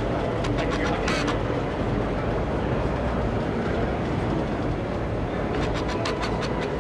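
Indoor exhibition-hall ambience: a steady low rumble of crowd and hall noise, with a few clusters of sharp clicks or taps near the start and again near the end.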